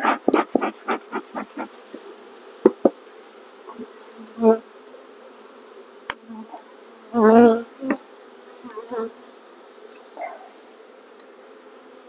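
Honey bees buzzing at an open hive: a steady hum, with single bees buzzing close past the microphone about four and a half and seven seconds in, the second the loudest. A quick run of short pulses sounds in the first two seconds, and there are a couple of sharp clicks.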